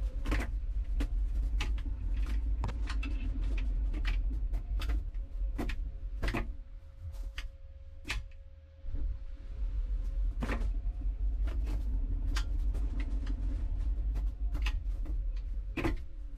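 LG TROMM WashTower dryer running: a steady low hum from the turning drum, with laundry tumbling and knocking against the drum in sharp, irregular clicks. The drum stops for about a second roughly halfway through, then starts turning again.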